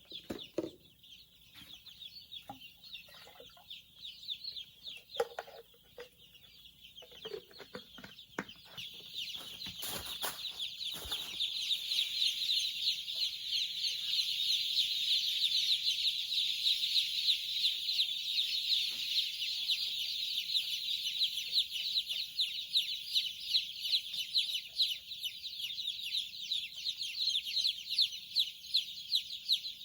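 A flock of young chickens peeping, a dense chorus of rapid high-pitched calls that swells louder after the first several seconds and then carries on steadily. There are a few brief knocks early on.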